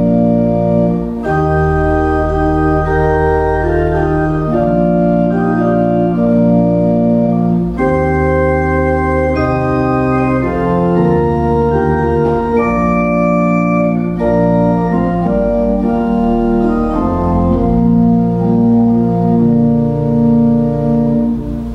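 Church pipe organ playing slow sustained chords that change every second or two over a deep bass; the final chord is released right at the end.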